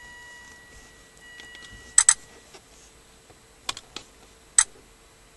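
Sharp clicks from a Toshiba laptop being operated: a quick double click about two seconds in, then three single clicks, over a faint steady hum.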